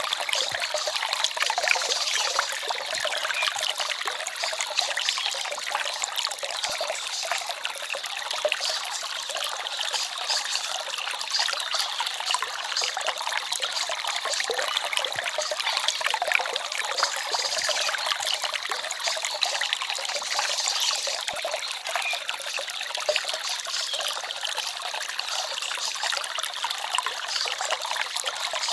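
Forest stream trickling and babbling steadily, with many small splashes and drips in the flow.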